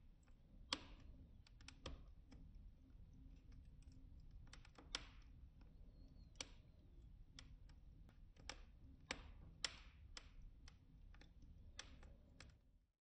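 Firewood burning in a cast-iron wood stove: faint, irregular sharp crackles and pops over a low steady rumble of the fire, stopping abruptly near the end.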